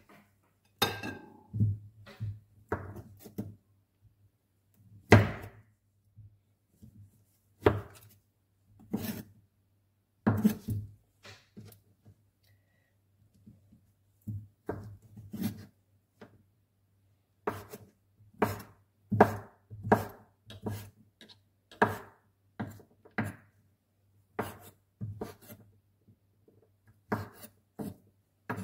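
Kitchen knife cutting a wheel of provola cheese into cubes on a wooden cutting board: irregular knocks of the blade against the board, some in quick runs, with a few short pauses.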